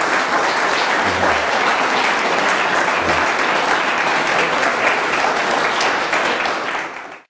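Audience applauding steadily; the clapping cuts off suddenly near the end.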